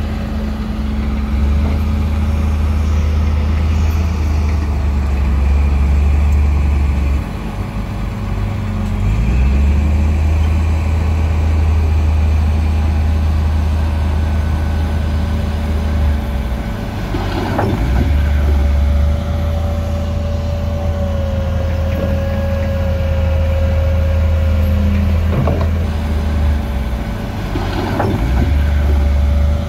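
Heavy diesel earthmoving machinery running: a deep, steady engine drone that eases off and picks up again a few times. There are a few short knocks in the second half.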